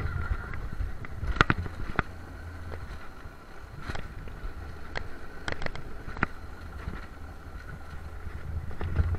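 Alpine mountain coaster sled running down its steel rail track: a steady low rolling rumble with a faint steady whine, and sharp clacks and knocks from the sled and track, several in quick succession about midway. The rumble is louder at the start and swells again near the end.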